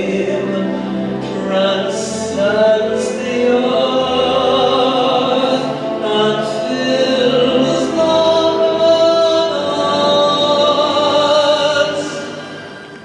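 A man singing a sacred solo with a wide vibrato over a sustained instrumental accompaniment. The music fades away shortly before the end.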